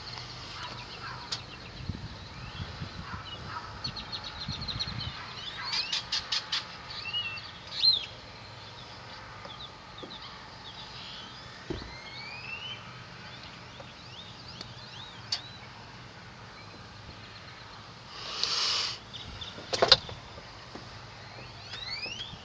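Birds chirping in short rising and falling calls, with a rapid run of ticks, a brief rustle and a sharp click near the end.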